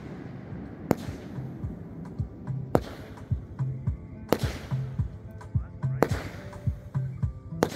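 Aerial fireworks going off: five sharp bangs, each about a second and a half to two seconds after the last. Music with a steady beat plays underneath.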